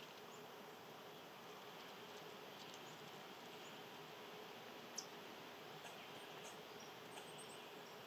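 Faint steady insect buzzing, with a few faint high chirps and one short, sharper high note about five seconds in.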